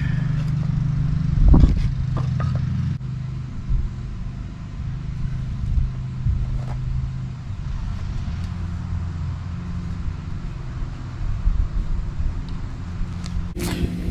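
A steady low mechanical hum, like a motor running, that drops in level about three seconds in. A thump about a second and a half in, and a few light knocks.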